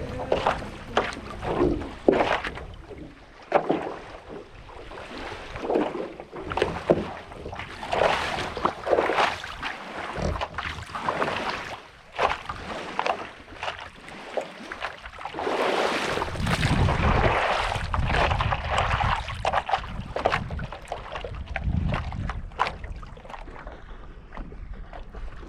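Paddle strokes from a stand-up paddleboard dipping and swishing through lake water in an irregular rhythm, with wind rumbling on the microphone at times.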